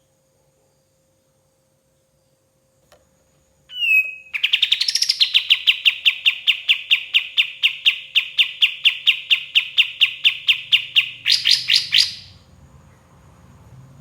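Kapas tembak song: a short rising note, then a long, fast run of identical sharp notes, about five a second, for some seven seconds, ending in a few higher, quicker notes before it stops.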